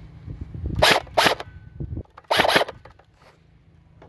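A 3D-printed electric airsoft gun firing three short bursts: two quick ones about a second in, and a slightly longer one just past two seconds. Each is the buzz of its motor-driven gearbox cycling.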